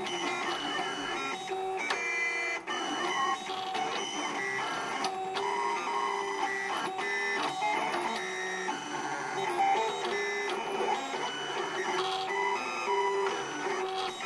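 SK-375T vinyl cutter plotter's motors whining as the pen carriage and paper roller trace an outline, the pitch stepping and gliding up and down with every change of direction and speed. It is drawing with a pen in place of the cutting blade.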